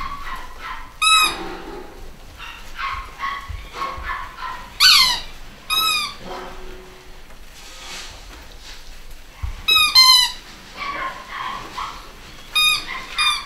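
Basset Hound puppies yelping and squealing as they play, with several sharp, high yelps, some falling in pitch, and softer whines between them.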